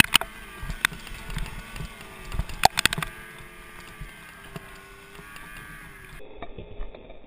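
Snowmobile engine running ahead at steady speed, its pitch rising and falling a little, while it tows a skier on a rope. Sharp knocks and clatter cut through it, loudest at the very start and in a cluster about two and a half to three seconds in.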